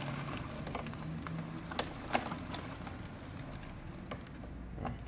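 Scattered light metallic clicks and clinks of a new motorcycle drive chain being handled, over a steady low hum.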